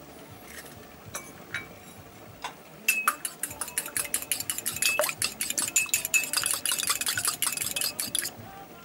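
Fork beating an egg in a small ceramic cup: a fast run of clinks of the fork against the cup, about eight a second, starting about three seconds in after a few scattered clicks and stopping just before the end.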